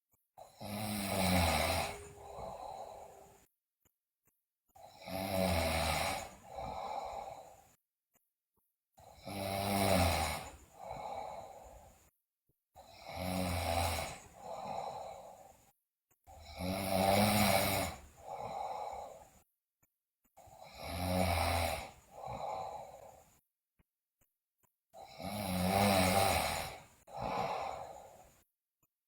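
A sleeping girl snoring loudly, seven snores about every four seconds, each a long loud breath followed by a shorter, softer one, with quiet gaps between.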